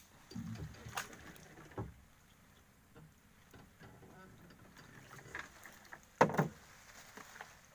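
Knocks and thumps of gear against a small boat's hull as a paddle and gill net are handled: a few soft thumps near the start, a sharper knock about two seconds in, and the loudest knock about six seconds in.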